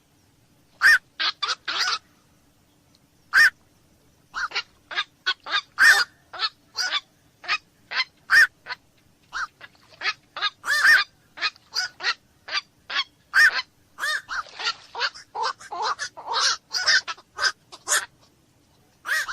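Black-crowned night heron giving short calls over and over, a few seconds apart at first, then coming quickly one after another through the second half.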